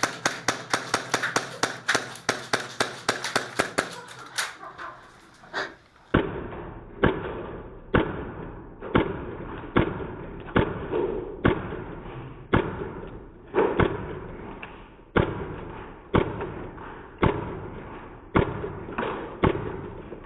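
Airsoft electric rifle firing a rapid string of shots, several a second, for about four seconds. About six seconds in the sound changes to a muffled, slowed-down replay, where each shot becomes a dull thud about a second apart.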